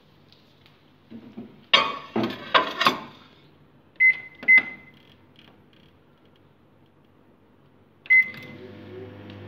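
Microwave oven being set going: a few knocks and clicks as the dish goes in and the door is shut, two short keypad beeps, then a third beep about eight seconds in as the oven starts running with a steady hum.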